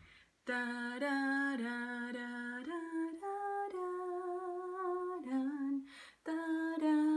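A woman humming a slow hymn melody in six-eight time, holding each note and stepping up and down between them, with a short break about five seconds in before she carries on.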